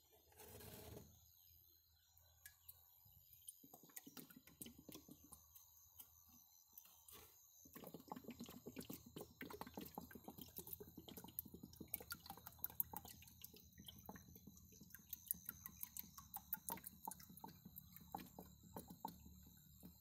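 Liquid being poured from a plastic jug into a drum of water, a faint gurgling with many small irregular bubble pops that becomes steady from about eight seconds in.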